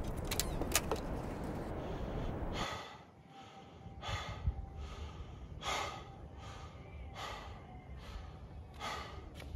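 Two sharp clicks from a hotel keycard door lock. A couple of seconds later a man breathes hard and out of breath, gasping in and out about once a second.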